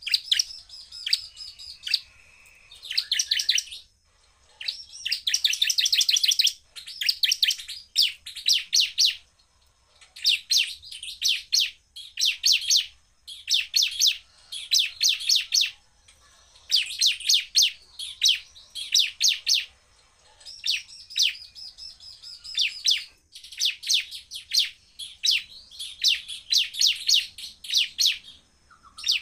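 Bar-winged prinia (ciblek) singing hard: phrases of very rapid, sharp, high notes fired off like shots, each lasting a second or two, repeated with short pauses between.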